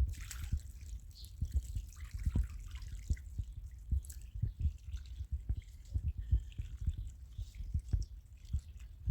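Irregular soft low thumps and knocks, several a second.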